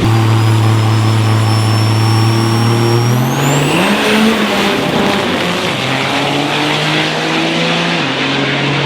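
Turbocharged Cummins diesel drag truck engine running at steady high revs. About three seconds in, its pitch climbs with a rising turbo whistle, then it runs on at a higher, steadier pitch.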